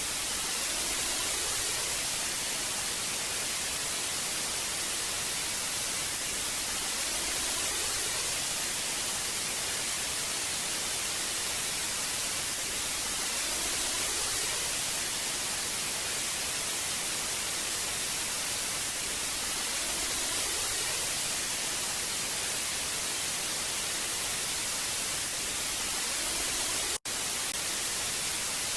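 Old television static: a steady, even hiss that is brightest in the high end, with faint slow swells about every six seconds. It cuts out for a split second near the end, then comes straight back.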